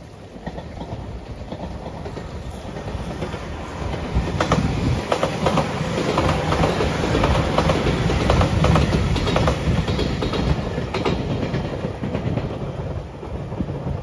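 JR 8000 series electric express train passing, rising as it approaches and easing off as it goes. Wheels clack over the rail joints in a run through the middle of the pass, over a steady rumble of wheels on rail.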